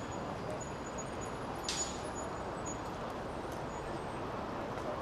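Steady outdoor background noise of a gathered crowd with distant traffic, with one sharp click a little under two seconds in.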